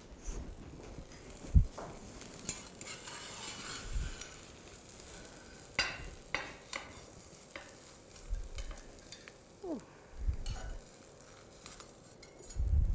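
Spatula scraping and clinking against a frying pan as an omelette is worked loose and slid out onto a plate, with a few dull knocks of the pan and plate being handled.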